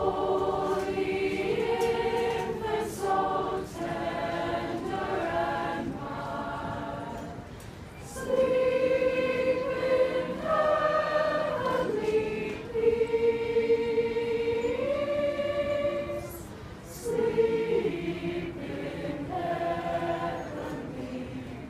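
Mixed choir of men and women singing a cappella, in long held phrases with brief breaks between them.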